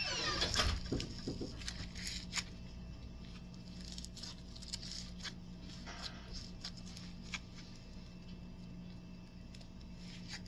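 Snowfish slime being handled and squished, giving scattered small crackles and pops. It is louder and more rustly in the first second.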